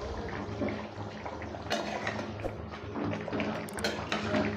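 Thick chicken curry simmering in an uncovered pan, bubbling and popping softly, with a spatula knocking and scraping against the pan a couple of times toward the end.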